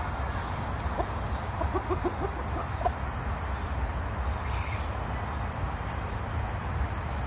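Light Brahma rooster giving a quick run of short low clucks about two seconds in, then one more a moment later, over a steady high insect drone.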